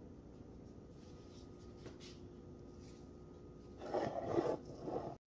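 Faint room tone with a low steady hum, then about four seconds in a short bout of rustling and rubbing as the towel-covered baking pan, wrapped in plastic film, is handled; it cuts off suddenly.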